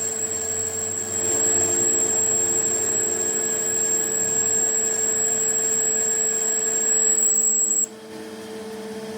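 A workshop power tool running steadily with a high whine over a lower hum, cutting off suddenly about eight seconds in, leaving a quieter machine hum.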